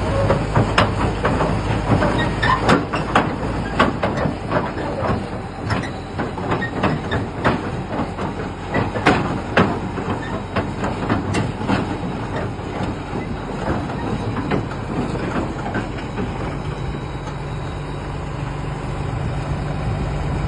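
Earthmoving machine's engine running steadily under many irregular sharp metallic knocks and clanks, which thin out in the later part. The engine note rises slightly about sixteen seconds in.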